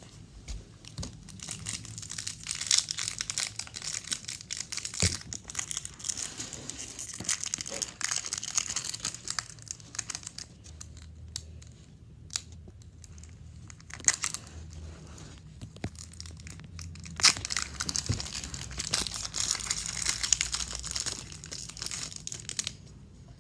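Foil wrapper of a Pokémon Chilling Reign booster pack crinkling and tearing as it is opened by hand. It comes in two busy spells with scattered crackles between.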